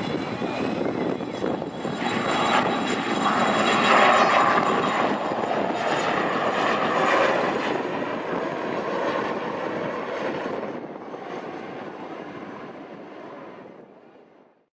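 Large military helicopter making a low pass: rotor and engine noise builds to its loudest about four seconds in, then fades steadily as it flies away.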